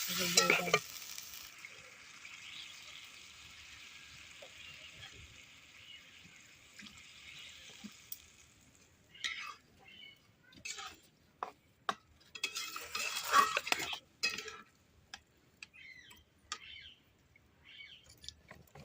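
Fish head and pumpkin curry sizzling in a pan, with a spoon scraping and knocking against it at the start. The sizzle dies away about nine seconds in, and scattered knocks and clatter follow, loudest about thirteen seconds in.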